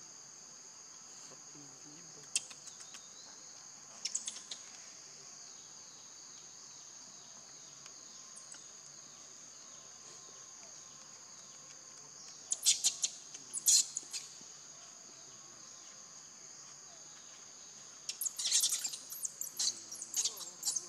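A steady, high-pitched drone of insects, with short, sharp, high calls breaking in now and then, loudest in two clusters: one around the middle and one near the end.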